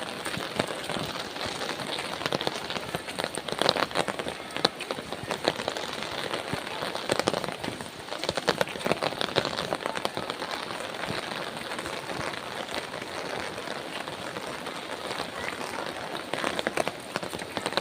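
Steady rain falling, with dense patter of drops hitting a surface, heavier for a few seconds now and then.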